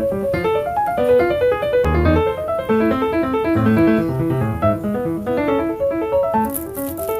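Background piano music: a quick, flowing melody of many short notes, with a few faint crackles near the end.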